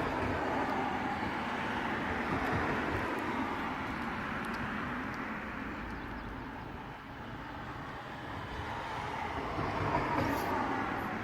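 Steady background noise of passing road traffic, swelling in the first few seconds, fading, then swelling again near the end.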